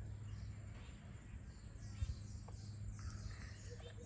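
Faint birds chirping in quick runs of short falling calls, over a steady low rumble of wind or distant traffic, with a single soft thump about halfway through.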